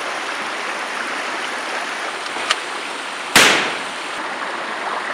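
A single handgun shot, a loud sharp bang about three and a half seconds in that rings off briefly, preceded by a small sharp click about a second earlier. A stream rushes steadily under both.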